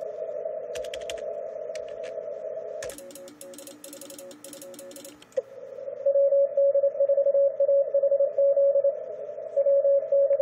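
Shortwave receiver hiss heard through a narrow CW filter, with a few computer keyboard clicks. About three seconds in comes a burst of rapid typing over faint Morse code. From about halfway, a loud Morse code tone is keyed on and off as the contest station works CW.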